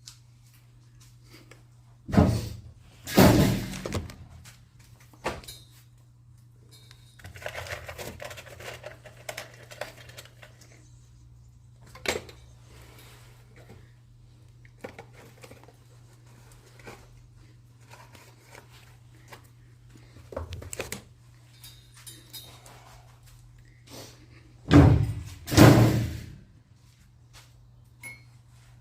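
Intermittent knocks and thuds, as of objects being handled and bumped. The loudest are two pairs of heavy thumps, one about two seconds in and one near the end. In between are single clicks and a few seconds of rustling, over a steady low hum.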